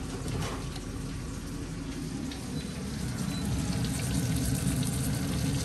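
Food sizzling and crackling in a hot frying pan, with a steady low rumble beneath, growing a little louder about three and a half seconds in.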